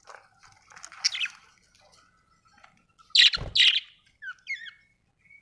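Budgerigar chirping: scattered short chirps and quick gliding notes, with a loud harsh double call a little past three seconds in.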